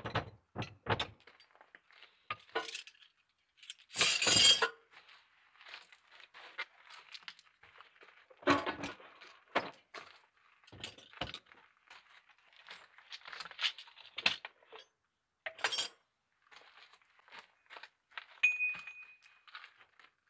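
Metal hand tools clinking and clattering as they are set down in a car boot, with a series of separate knocks and a louder, longer clatter about four seconds in.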